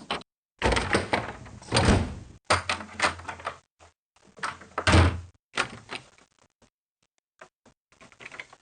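A string of separate door sound effects, one after another with short gaps of silence between them: doors closing and slamming, the loudest slams about two seconds and five seconds in.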